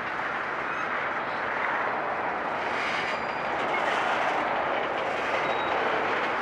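Tank cars of a Norfolk Southern freight train rolling slowly past, their steel wheels making a steady rolling noise on the rails.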